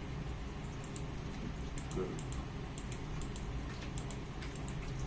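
Irregular light clicks of typing at a computer keyboard, over a steady low hum.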